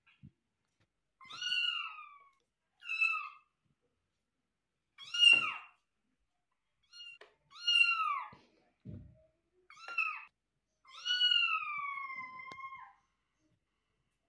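Kitten meowing repeatedly: six high, thin meows a second or two apart, each rising then falling in pitch, the last one drawn out for about two seconds.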